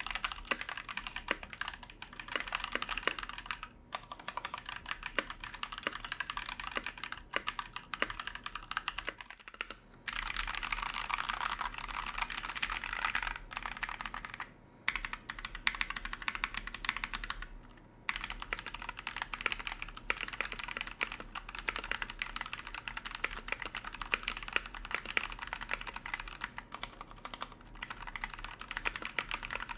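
Continuous typing on a Noir OLV75 mechanical keyboard, a fast stream of key clicks and thocks broken by a few short pauses. It is a hot-swap board with Gateron switches and foam between the plate and the PCB.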